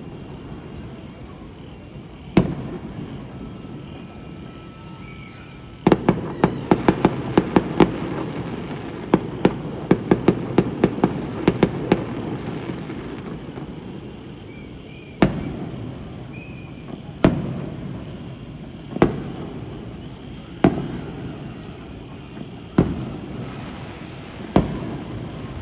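Fireworks shells bursting: a single bang, then a rapid volley of bangs for about six seconds, then single bangs about every two seconds.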